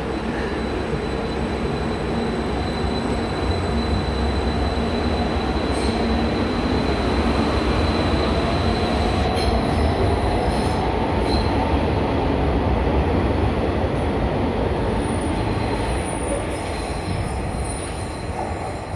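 11th-generation Athens Metro Line 1 electric train pulling out and accelerating: a steady rumble of wheels on the rails with a whine that rises in pitch. It grows louder through the middle and fades near the end as the train leaves.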